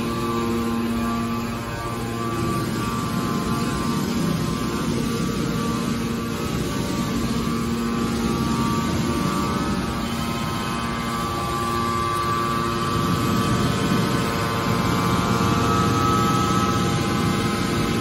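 Hydraulic scrap-metal baler's power unit running: a steady mechanical hum with held whining tones from the motor and pump that fade and return.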